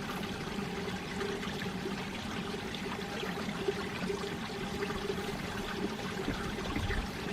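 Mountain valley stream water flowing steadily.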